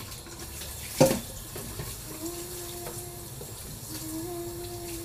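Tap water running into a stainless steel kitchen sink during washing, with a sharp clatter about a second in. A steady hum-like tone is held twice in the second half.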